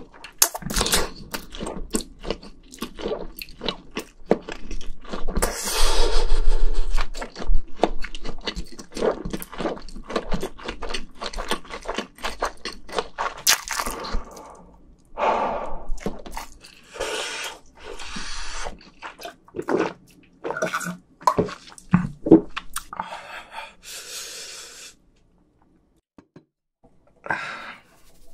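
Close-miked chewing and wet mouth sounds of a person eating extremely spicy fire noodles, broken by several louder breathy bursts as he breathes through the heat. Near the end it goes nearly quiet for a moment.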